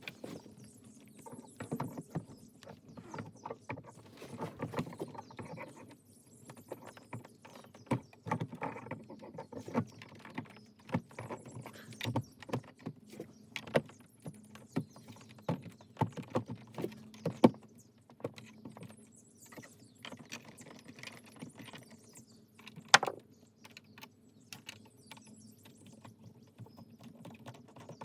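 Irregular clicks, taps and knocks of hands fitting fish finder mounting hardware: setting the unit on its gimbal mount and working the knobs and fasteners. One sharper knock comes about three quarters of the way through.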